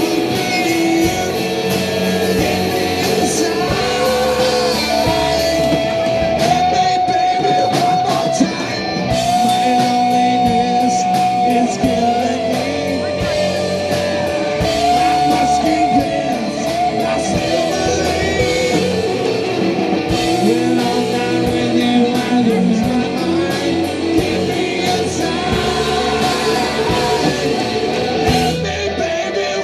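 Live rock band playing: electric guitars and a drum kit through amplifiers, with long held lead notes.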